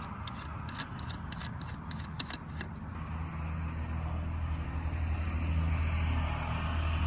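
Low road rumble of a car moving, growing louder, with a quick run of sharp clicks and taps over the first few seconds.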